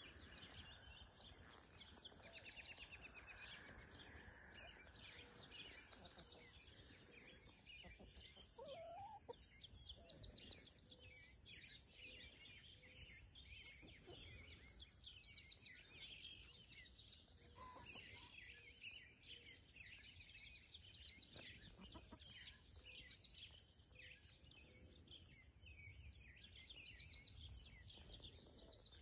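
Faint clucking of free-range hens foraging, among many short, high bird chirps.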